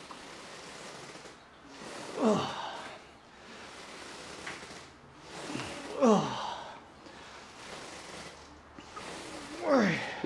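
A lifter's strained grunts on the reps of a heavy Bulgarian split squat set: three short grunts, each falling in pitch, about four seconds apart, with hard breathing between.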